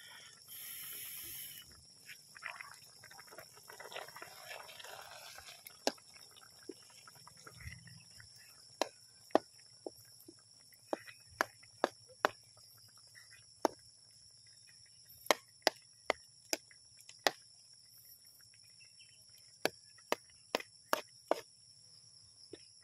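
Metal spoon knocking against an aluminium pot while food is stirred in water: sharp, irregular clinks starting about six seconds in, over a steady high chirring of insects.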